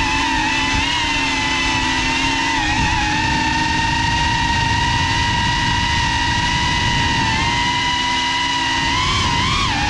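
FPV drone's electric motors and propellers whining at a steady high pitch, with a short rise and dip in pitch near the end.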